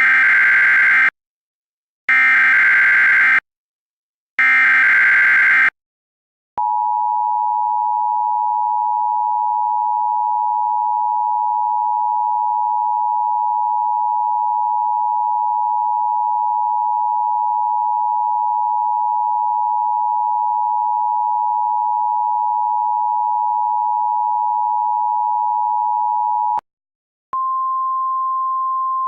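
Emergency Alert System SAME header: three buzzy data-tone bursts of about a second each. Then the two-tone EAS attention signal holds steady for about twenty seconds, and after a brief gap a single steady tone starts near the end.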